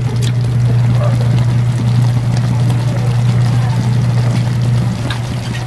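Steady low hum over a wok of ground-meat sauce cooking on the stove, with a couple of light clicks at the very start.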